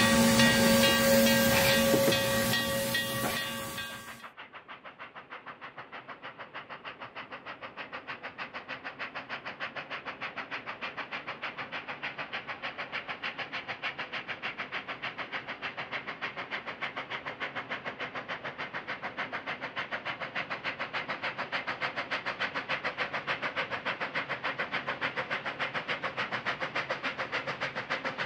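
Steam train: a whistle sounds a held chord of several steady tones for about four seconds. Then an abrupt cut to a fast, even rhythmic beat of several strokes a second, which slowly grows louder.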